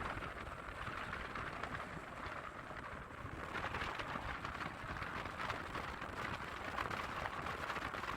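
Steady rush of a mountain stream, water running over rocks.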